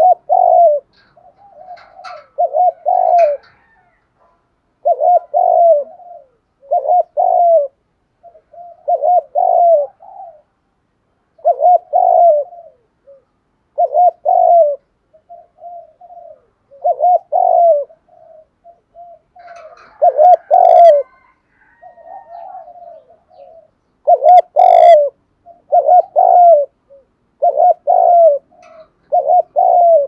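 Spotted dove cooing: a repeated low coo phrase, its loud notes mostly in close pairs every couple of seconds, with softer notes between.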